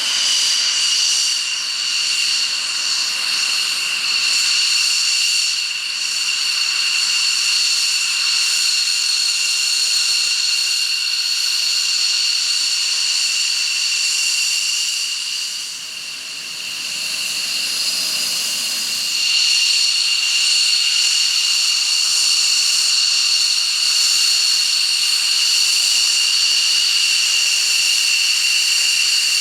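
Jet engine running steadily: a loud, high-pitched turbine whine over a hiss. It dips briefly about halfway through, then comes back.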